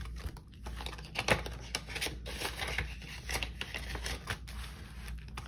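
Paper money and cash envelopes being handled: a run of irregular rustles, crinkles and quick flicks, with a sharper crackle a little over a second in.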